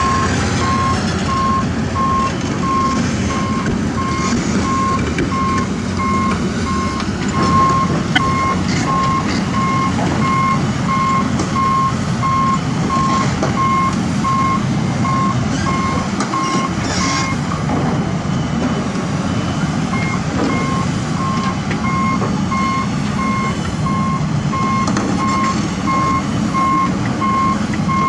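Reversing alarm on a heavy construction machine beeping steadily at about two beeps a second, over a diesel engine running. The beeping stops for a couple of seconds a little past the middle, then resumes.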